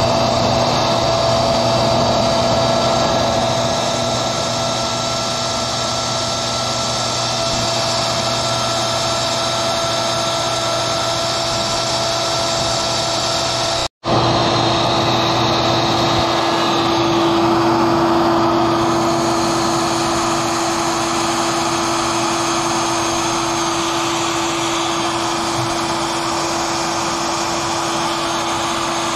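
Router on a Maslow CNC running steadily under load, with a high motor whine, as its bit routes a sign into wood. The sound drops out for an instant about halfway through and comes back with its steady tone at a different pitch.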